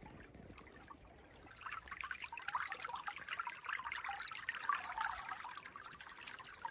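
Shallow stream water trickling and splashing close by, as hands hold a grayling in the current. The water grows louder about a second and a half in.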